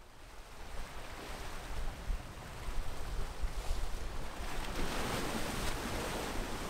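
Ocean waves breaking and washing against rocks, fading in from silence and swelling about five seconds in, over a steady low rumble.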